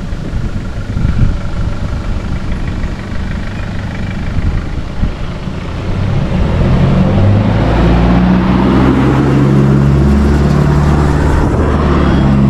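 Four-wheel-drive vehicle descending a steep, rough track with 4WD and diff lock engaged: low rumbling and knocking of the vehicle over the uneven ground, then about halfway through the engine grows louder and steadier.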